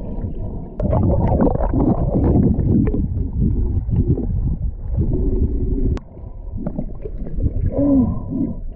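Water sloshing and gurgling around a camera held in the sea, heard muffled from underwater, in irregular surges.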